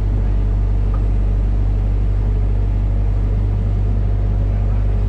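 Hitachi excavator's diesel engine running steadily, a constant low drone with no change in speed.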